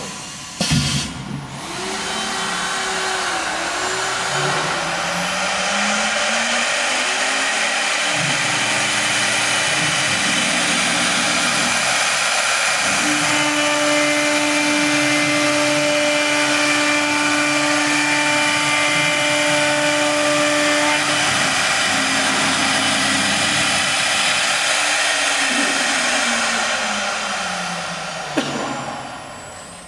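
Three-spindle CNC wood router (STM1325-3T) running, its spindle motors whining as the bits cut into a wooden panel, with a steady hiss of machining. The whine rises in pitch over the first few seconds, holds steady through the middle, and falls near the end.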